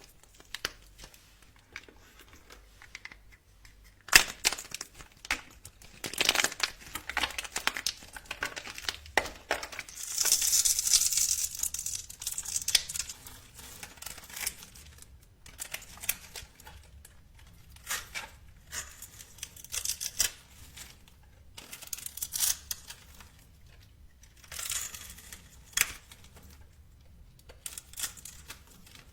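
Close-up crinkling and tearing handling sounds: irregular clusters of crackles and sharp clicks, with a longer hissing scrape about ten seconds in.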